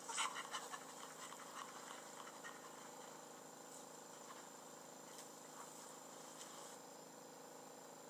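A faint deep inhale: a string of quick breathy pulses, the strongest just after the start, fading out within the first couple of seconds and leaving a low hiss.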